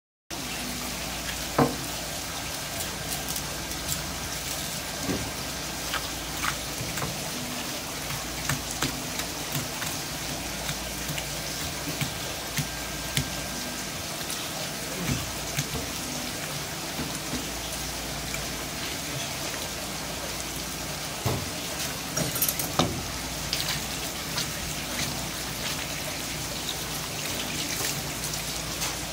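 Steady hiss of running water splashing, with scattered sharp clicks and knocks of a knife on a wooden cutting board as a conger eel is split open along its backbone.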